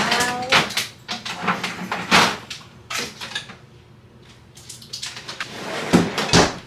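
Kitchen handling sounds: a quick run of knocks and clatters, then a longer rustling noise from about five seconds in that ends in two sharp knocks.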